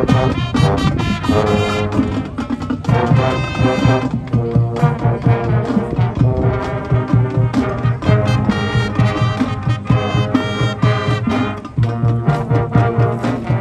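Marching band playing its show: full brass chords from trombones and trumpets over percussion.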